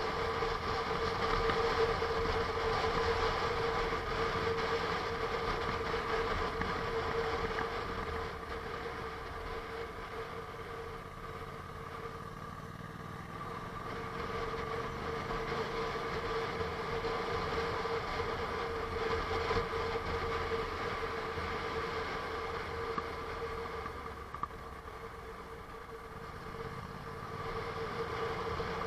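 Honda NC750S DCT motorcycle's parallel-twin engine running steadily, heard onboard with wind rush on the microphone. The sound eases off twice for a few seconds.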